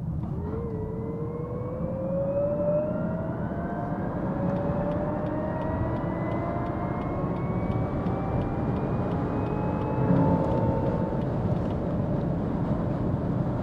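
Lexus UX300e accelerating hard, heard inside the cabin: a rising electric-motor whine, played through the car's speakers by its Active Sound Control, over steady road and tyre noise. The whine climbs for about four seconds, drops back in pitch and climbs again for several more seconds.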